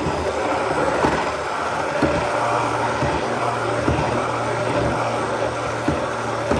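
Braun MultiQuick 9 hand blender motor running steadily through a thick, stiff smoothie mix, with a few short knocks along the way.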